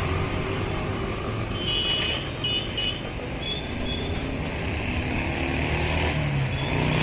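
Road traffic going by: a steady rumble of passing motorcycles and motor vehicles, with a few short high chirps about two to three seconds in.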